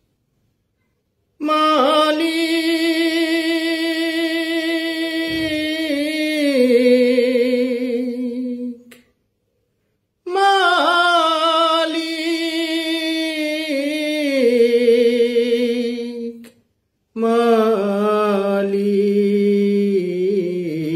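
A man singing a Bengali Islamic devotional song (gojol) unaccompanied: three long drawn-out phrases without clear words, ornamented with wavering turns, each sliding lower near its end, with short breaths between them.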